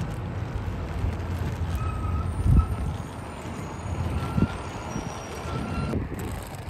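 Inline skate wheels rolling over cracked asphalt: a steady low rumble with a few knocks, the loudest about two and a half seconds in, and wind on the microphone.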